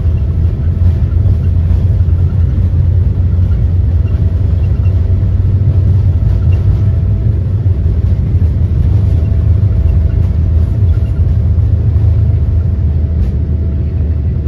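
Boeing 787-8 heard from inside the cabin while it rolls along the runway for takeoff: a loud, deep, steady rumble of engines and wheels, with a faint steady whine above it.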